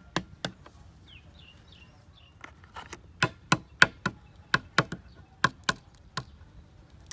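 Boiled duck eggs being knocked against a wooden board to crack their shells: sharp taps, two at the start, then a quicker run of about a dozen, often in pairs, from about two and a half seconds in.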